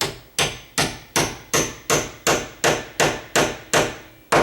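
Hammer tapping a steel door hinge pin down into the hinge, about a dozen light, evenly spaced metallic taps, roughly three a second, each with a short ring, and one last tap near the end.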